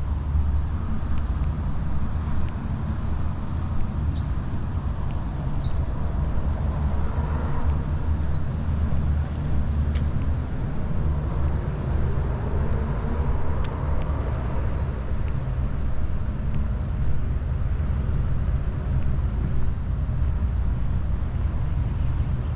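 Birds calling with short, high, downward-sliding chirps, about one a second, over a steady low rumble.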